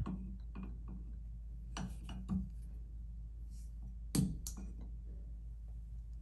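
Needle-nose pliers clicking and tapping against a shower mixing valve while gripping and pulling out its hot-side check valve: a few light clicks, about two seconds in and again about four seconds in, the loudest near four seconds, over a steady low hum.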